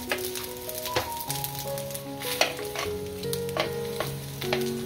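Starch-coated pork back ribs sizzling as they fry in oil on a grill pan, with frequent sharp pops and clicks over the steady hiss. Soft background music with a simple melody plays underneath.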